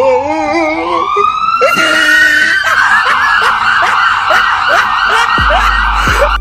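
Electronic police siren, played as a fake. It wails, falling and then rising in pitch, then switches about three seconds in to a fast yelping warble. A deep steady tone comes in near the end.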